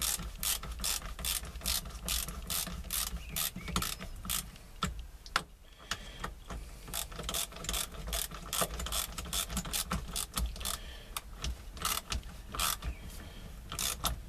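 A 13 mm ratchet wrench clicking in quick, even strokes, about three clicks a second, with a short pause about five seconds in, as the steering wheel puller's bolts are run into the hub.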